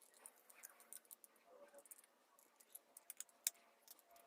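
Faint clicks and light scraping of plastic as the snap-fit back cover of a battery wall clock's movement is prised open, with one sharper click about three and a half seconds in.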